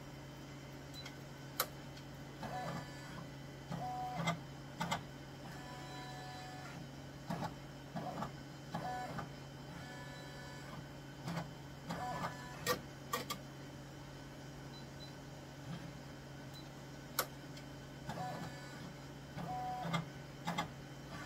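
Brother PR600 multi-needle embroidery machine running a trace: its hoop carriage moves in many short whirring steps around the design's outline, with scattered clicks, over the machine's steady hum.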